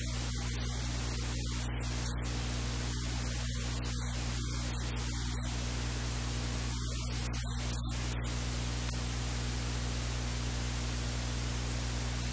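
Steady loud hiss of recording noise over a low, steady electrical hum; no speech or kitchen sounds stand out.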